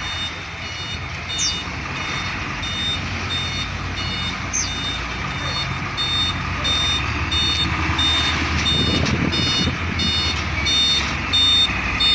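Reversing alarm on a container semi-trailer truck backing up, beeping in a high tone at an even, repeating rhythm over the low sound of the truck's diesel engine. The engine grows louder in the second half.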